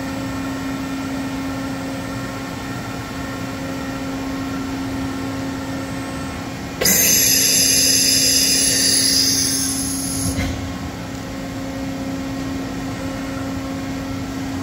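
Doosan DCM 2740 CNC bridge mill running with a steady hum as its spindle ram moves down. About seven seconds in, a loud hissing rush starts suddenly, lasts about three and a half seconds and stops, and the hum carries on.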